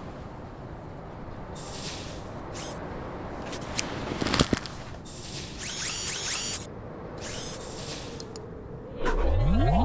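Steady wintry wind-like hiss with added stop-motion sound effects: a few short, high chittering noises and a sharp knock about four and a half seconds in. Synth music comes in near the end.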